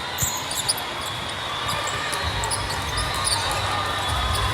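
Volleyballs bouncing on a hard gym floor, with short sneaker squeaks, over the steady din of a large tournament hall; a low rumble swells about halfway through.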